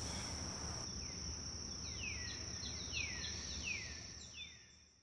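A bird calls a run of short, downward-slurred chirps over a steady high-pitched whine and a low background rumble, then the sound fades out near the end.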